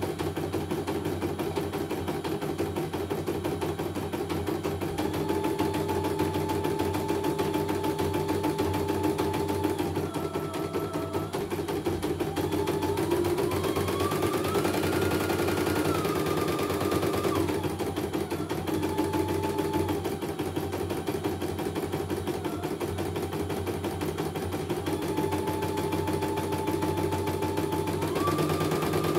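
CNY computerized embroidery machine test-stitching a design in a small hoop: a rapid, steady needle rattle, with a motor whine that steps up and down in pitch as the hoop is moved about.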